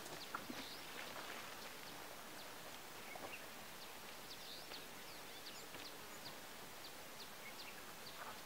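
Bush ambience: many short, high chirps of small birds scattered over a steady faint hiss, with a few faint knocks near the start.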